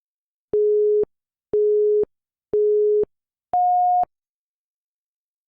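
Countdown timer beeps: three short identical electronic beeps a second apart, then a fourth, higher-pitched beep that marks the end of the countdown.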